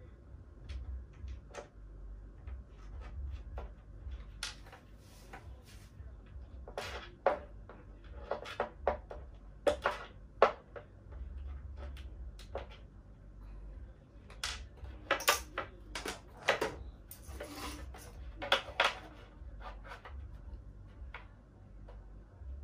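Scattered clicks, taps and knocks of metal hinges, screws and a drill being handled and set against a plywood panel, in two busier spells.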